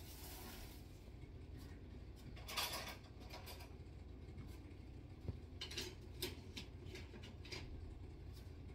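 Faint handling of small hard objects during the razor clean-up. A short scrubbing rub comes about two and a half seconds in, and a few light clicks and taps follow later, over a low steady hum.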